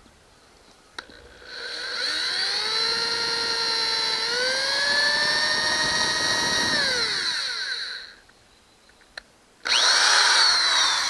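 Power drill boring a screw hole into a boat's fibreglass transom. The motor spins up about a second and a half in and runs steadily, its pitch stepping up partway through, then winds down. After a click it starts again near the end with a short, falling whine.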